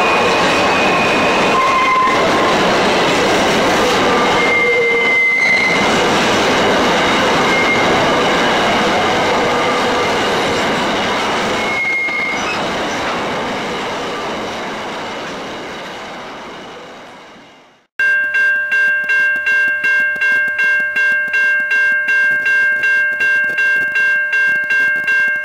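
Empty grain hopper wagons rolling past close by: a steady rumble of wheels on rail, with short high-pitched wheel squeals now and then, fading away. After a cut, an electronic level crossing warning bell rings in a rapid, even rhythm.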